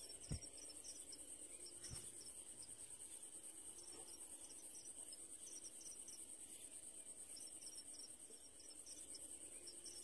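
Steady, pulsing high-pitched insect trilling, crickets or similar, with short faint chirps coming and going above the background. A dull thump about a third of a second in and a softer one at about two seconds.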